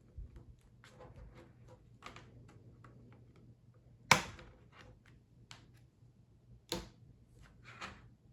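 Handling of a 4K Blu-ray steelbook case: scattered light clicks and taps, with a sharp click about four seconds in and another a few seconds later.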